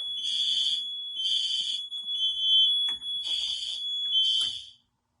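Fire alarm system in alarm, set off by testing a combination smoke/heat detector. Horns pulse about once a second over a steady high-pitched tone, then cut off near the end.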